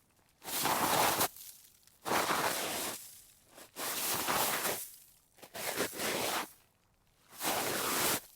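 Someone or something sliding across snow, five separate times: each slide is a short scraping swish about a second long that starts abruptly and tails off.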